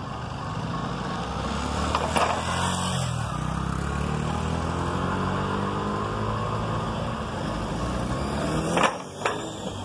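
Diesel engine of an approaching G22 diesel-electric locomotive, a low drone that grows louder and shifts in pitch a few seconds in. Two sharp knocks come close together near the end.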